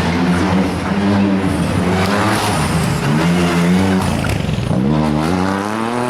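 Rally car engine working hard through the gears. Its pitch holds, drops briefly twice, then climbs steadily near the end as the car accelerates.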